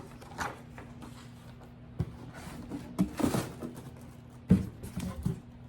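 Handling sounds from unboxing a pair of shoes: a few sharp knocks and thumps as the shoebox is opened and handled, with a brief rustle about three seconds in.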